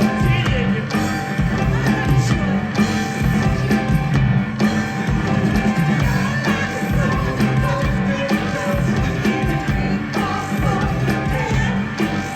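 A rock band playing live and loudly through a concert sound system, with a steady beat and a strong, heavy low end.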